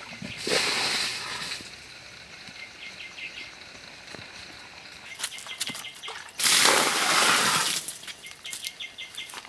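Water poured from a clay pot splashing into a muddy pit, twice: a short pour about half a second in and a longer, louder one about six and a half seconds in.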